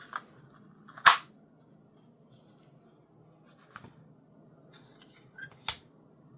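A few sharp clicks and knocks from handling a Logitech G Pro X Superlight 2C wireless mouse, with one much louder snap about a second in.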